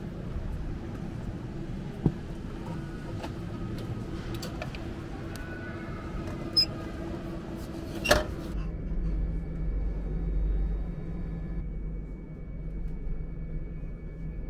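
Street background noise with a few sharp clicks and knocks at a tram-stop ticket machine, the loudest as a paper ticket is pulled from its slot. Then, from about nine seconds in, the inside of a tram: a steady low rumble with a thin, steady electric whine.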